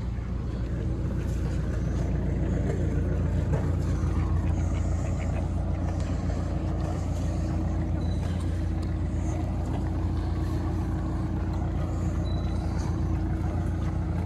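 Motor cruiser's engine running steadily as the boat moves along the canal, a constant low hum with a faint steady tone above it.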